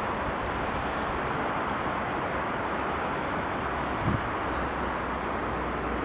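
Steady rushing of a light sea wind and small waves breaking on a pebble beach, with wind buffeting the microphone and a brief low bump about four seconds in.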